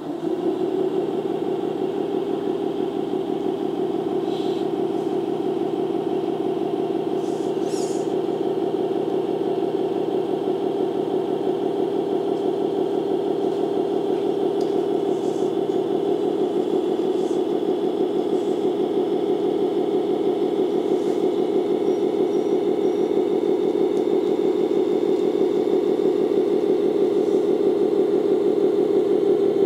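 Steady whine from an RC rock crawler's electric motor and four-speed gearbox as the model drives slowly in its lowest speed.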